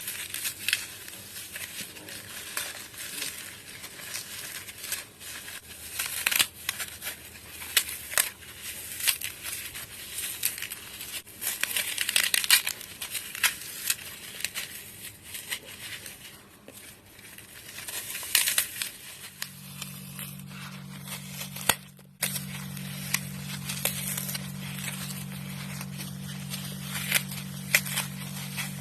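Dry floral foam being crushed: a dense run of crisp crunches and crackles. From about two-thirds of the way through, a steady low hum sits underneath.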